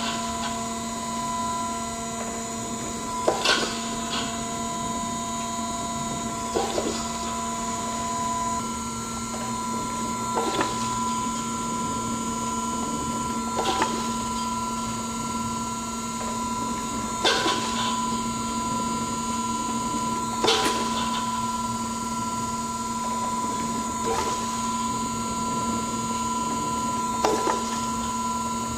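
Mark 1848 hydraulic surface grinder running, its hydraulic system humming steadily as the table traverses back and forth. A short clunk comes each time the table reverses, about every three and a half seconds.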